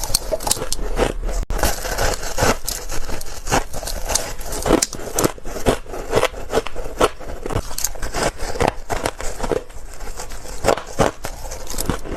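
Freezer frost crunching as it is bitten and chewed close to the microphone: an irregular run of crisp crunches, several a second.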